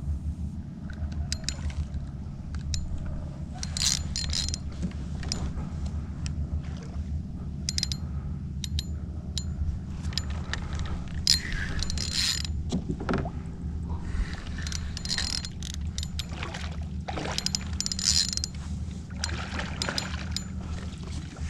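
Kayak under way: mechanical clicking and creaking from its drive or reel gear over a steady low hum, with short water splashes every few seconds.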